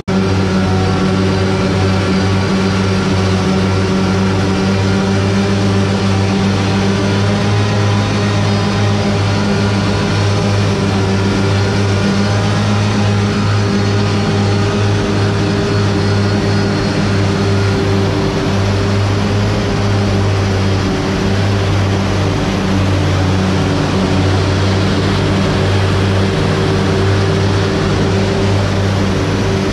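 A steady, unchanging mechanical hum with a low, even drone and overtones above it.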